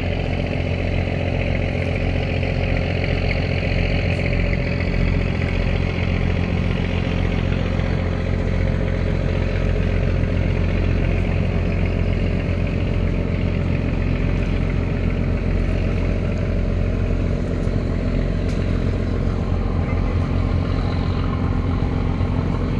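Boat engine running steadily at an even pace, with a low drone and a steady hiss above it.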